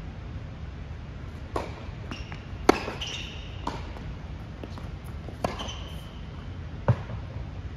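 Tennis balls struck by racquets and bouncing on an indoor hard court during a rally: about seven sharp pops, the loudest two near the middle and near the end, echoing in the hall. There are two brief high squeaks in between.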